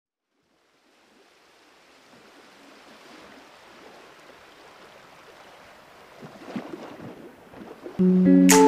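Intro whoosh sound effect: a wind-like rushing noise that swells slowly from about a second in, with a few crackles near the end, then loud music with plucked notes starts about eight seconds in.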